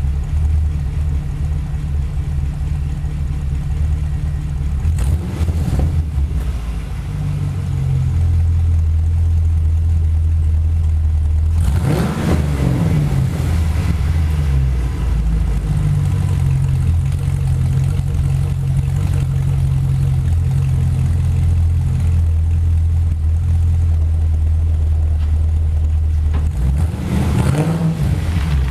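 Chevrolet Camaro engine idling steadily, revved up briefly three times: about five seconds in, about twelve seconds in, and near the end.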